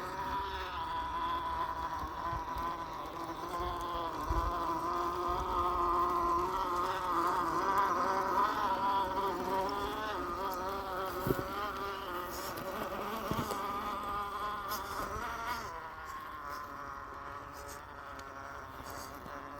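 The electric motor and geared drivetrain of an Axial SCX10 II RC crawler whine as it crawls, the pitch wavering with the throttle. It swells in the middle and eases off near the end, with two sharp knocks a little past halfway.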